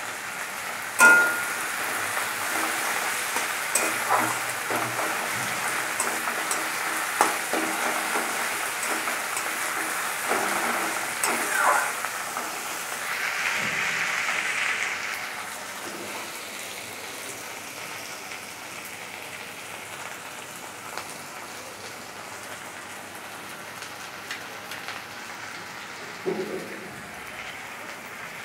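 Sliced onions and green chillies sizzling in mustard oil in a metal kadai, with a metal spatula scraping and knocking against the pan now and then, loudest about a second in. The sizzle is stronger while they are being stirred in the first half, then settles to a softer steady sizzle.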